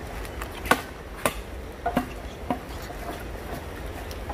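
A handful of sharp knocks or taps, irregularly spaced, some with a brief ring after them.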